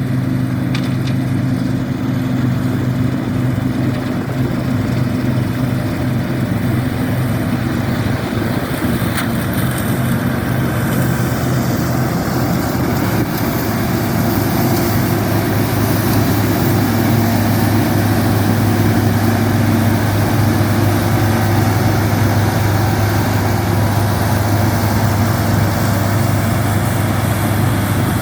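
New Holland TX36 combine harvester running steadily while harvesting wheat: a constant diesel engine drone under the noise of the cutting and threshing machinery. About ten seconds in, a brighter hiss grows in and stays.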